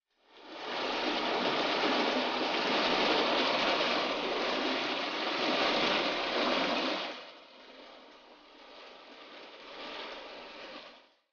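Water rushing steadily, loud for about seven seconds, then dropping to a quieter flow.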